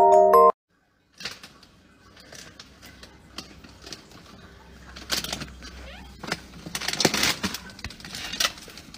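Chime-like mallet tones cut off about half a second in. After a short gap, an animal rummages among plastic bags and boxes: irregular rustling and crinkling with scattered light knocks, getting busier in the second half.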